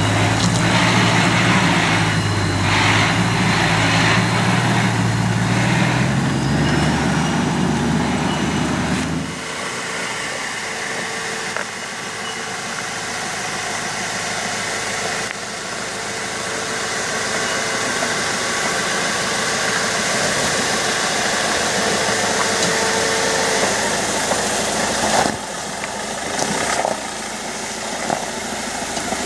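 Four-wheel-drive engines running at low revs, crawling over a rutted dirt track. A strong, steady low engine note for about the first nine seconds stops suddenly; after that a quieter engine sound carries on, with a faint steady whine.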